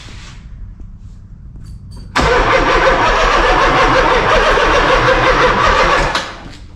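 Turbocharged GM LS V8 cranking on its starter motor, starting suddenly about two seconds in and turning over steadily for about four seconds without catching, then winding down. The owners later put the failure to fire down to stale fuel that had sat in the tank for about two years.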